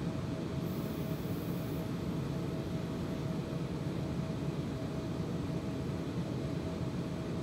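Steady low hum of an idling vehicle engine, with a faint steady whine above it.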